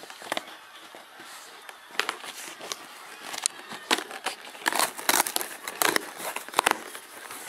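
A cardboard shipping box and its packaging being torn and pulled open: scattered crackles, crinkles and sharp rips, the loudest cluster about five seconds in.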